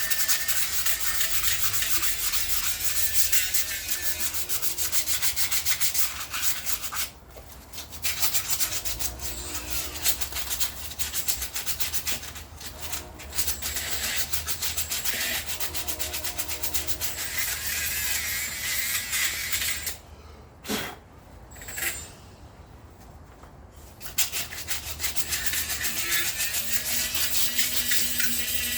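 Sanding pad scrubbing rust off a Chevy 10-bolt rear axle housing, a steady rough scraping that stops briefly twice, the longer break for a few seconds past the middle.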